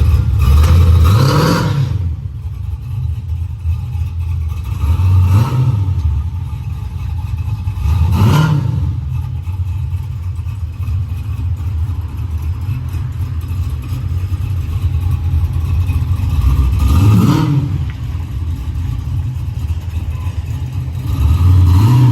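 1987 Chevy Caprice's LS 6.0-litre V8 on the move, pulling up through the revs in rising surges four times over a steady low drone.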